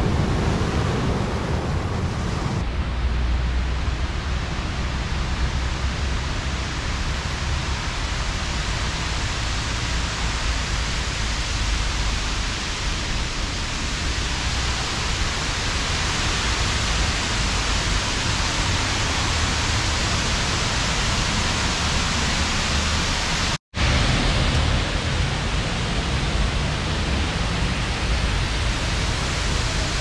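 Surf breaking on a rocky beach for the first couple of seconds, then the steady rush of a large artificial waterfall cascading down a rock face. The sound cuts out for an instant about three-quarters of the way through.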